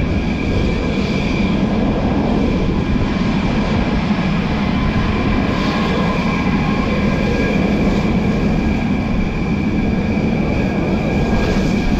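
Steady rumbling wind noise on the microphone across an open aircraft-carrier flight deck, with a faint steady high whine underneath.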